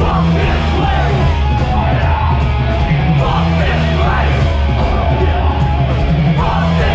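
Live metal band playing at full volume, with shouted vocals over the band.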